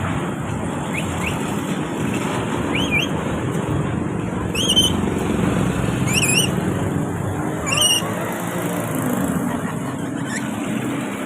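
Parrots giving short squawking calls, three louder wavering ones about a second and a half apart, over a steady rumble like traffic noise.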